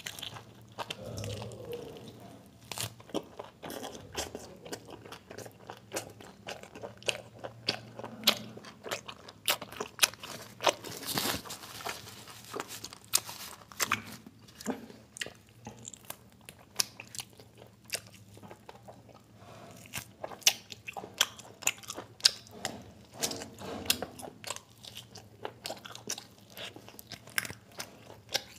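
Close-miked eating: a person chewing and biting mutton and biryani, tearing meat off a mutton bone, with many short mouth clicks and smacks.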